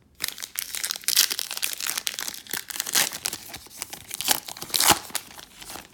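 A trading-card pack wrapper being torn open and crinkled by hand, a crackling run of plastic noise with several sharper rips.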